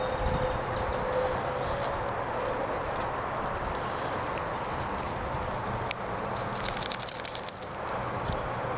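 Cairn terrier's paws pattering and rustling through dry leaves and twigs as she sniffs around, over a steady background hiss, with a flurry of light crackles about two-thirds of the way in.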